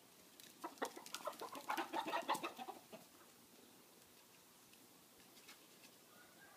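Domestic hens clucking and squawking in a quick, dense run of short calls that lasts about two and a half seconds, starting about half a second in and dying away by the three-second mark.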